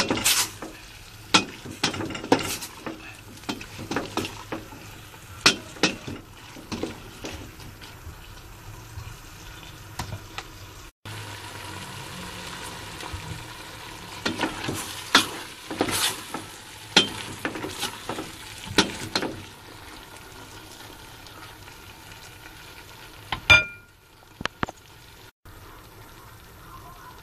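Chayote strips and ground pork frying in tomato sauce in a metal pan, with a steady sizzle. A utensil stirs and scrapes through them, knocking against the pan in runs of quick strokes, and there is one louder ringing clink near the end.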